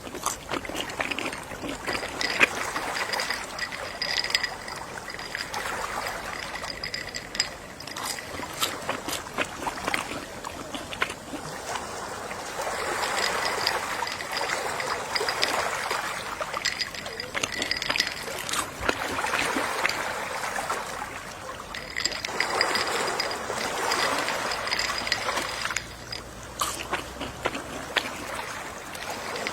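Gentle sea waves washing in and drawing back, the wash swelling every few seconds, with light splashes and clicks.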